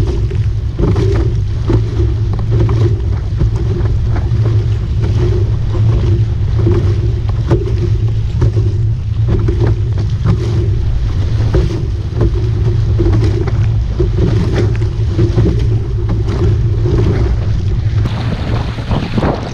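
Wind buffeting the microphone and water rushing and splashing against the hull of a Hobie Cat Bravo under sail, over a steady low hum. Near the end the hiss of spray grows.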